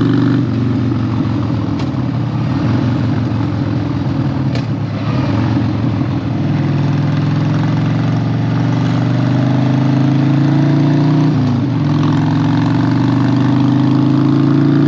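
Harley-Davidson 1200's V-twin engine running, uneven for the first few seconds, then climbing slowly in pitch before dropping sharply about three-quarters of the way through and settling steady again. A single brief click about a third of the way in.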